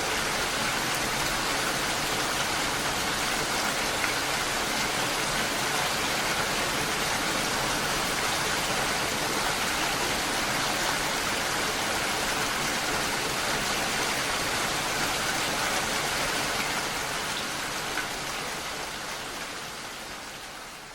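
Steady rain falling, an even dense hiss that fades out over the last few seconds.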